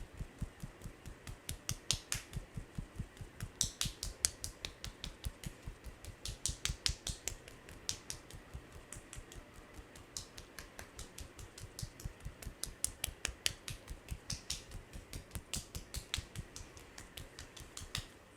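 Head-massage percussion: hands striking the head in a fast, steady rhythm, about five or six strikes a second, each a dull thud with a sharp click. It stops just before the end.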